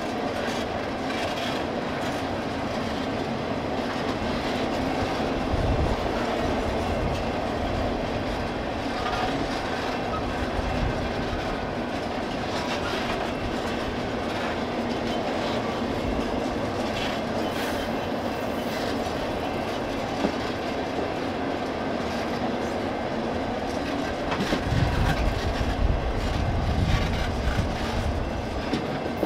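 Steel ore hopper cars of a freight train rolling past, a steady noise of wheels running on the rails, with heavier low thumps near the end.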